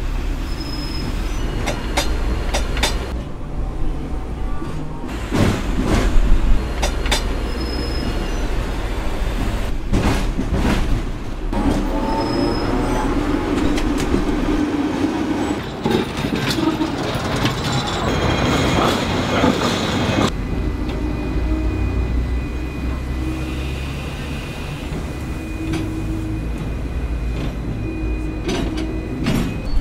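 Hong Kong double-decker electric tram running on its rails: a steady low rumble with scattered clacks and knocks from the wheels and track, a rising whine about twelve seconds in as it picks up speed, and a thin steady squeal in the last few seconds.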